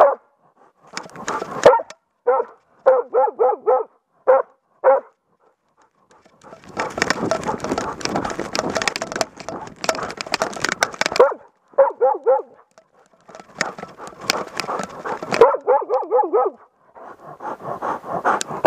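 Moose-hunting dog barking at bay in quick runs of short barks, close up from a camera on the barking dog itself. Between the runs come stretches of rustling and scraping as the dog moves through the brush.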